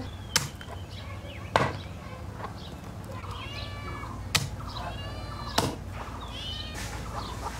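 A blade chopping: four sharp strikes a second or more apart, with high wavering calls in the background midway.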